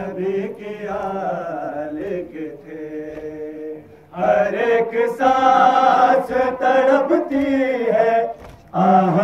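Men's voices chanting a Muharram noha, a mourning lament, in unison. The chanting gets louder about four seconds in and breaks off briefly near the end before resuming.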